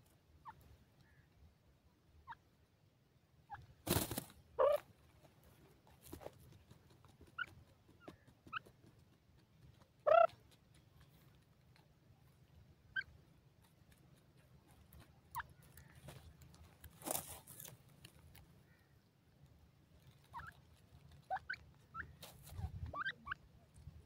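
Young grey francolins giving short, soft calls, a note or two at a time with pauses between, the loudest about ten seconds in and several close together near the end. A few brief rustling bursts stand out, the strongest about four seconds in and again around seventeen seconds.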